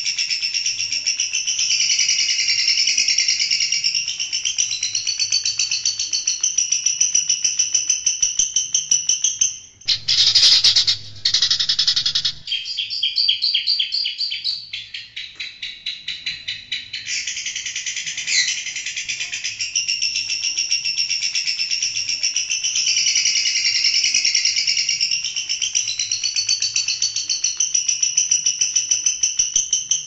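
Long-tailed shrike (cendet) singing a rapid, high-pitched, continuous chattering song that shifts its pattern several times, with a marked change about ten seconds in.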